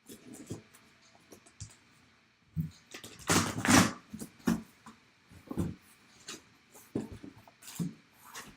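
Hands opening a taped, sealed cardboard box: a run of short scrapes and rustles of cardboard and tape, with a longer, louder rasp about three seconds in.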